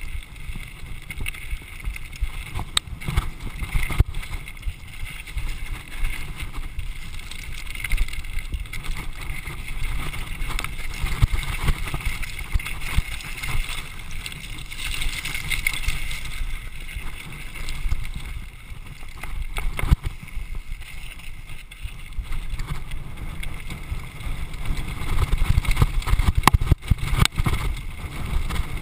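Downhill mountain bike descending a rough, stony trail at speed: a constant rumble and rattle of tyres, suspension and frame over rocks, with many sharp knocks from bumps and wind buffeting the microphone.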